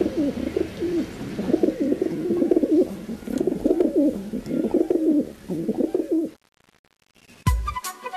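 Pigeons cooing, call after call, until the sound cuts off abruptly about six seconds in. A hip-hop beat with heavy kick drums starts just before the end.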